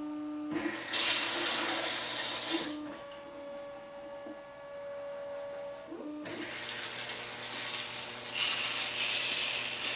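Electric bidet toilet seat's rear-wash jet spraying water and splashing against a face. The spray comes on about a second in, falls away just before three seconds, and returns from about six seconds in, growing louder, with a steady tone between the two spells.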